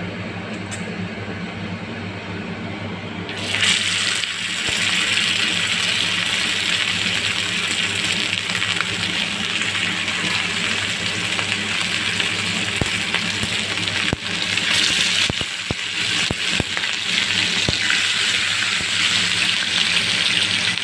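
Sardines shallow-frying in hot oil on a dosa pan: the oil bubbles, then the sizzle grows much louder about three and a half seconds in as the fish go into the oil and keeps going steadily. A few sharp clicks sound around the middle.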